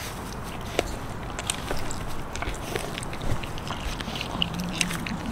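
French bulldog puppy chewing and crunching a raw chicken carcass, with irregular clicks and cracks of teeth on bone. A short low hum sounds near the end.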